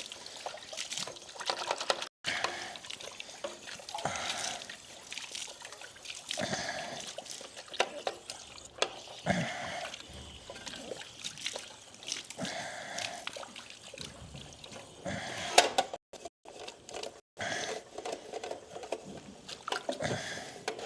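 Water being poured and sloshed in a duck's water bowl as the muddy bottom is rinsed out, in irregular splashes and trickles.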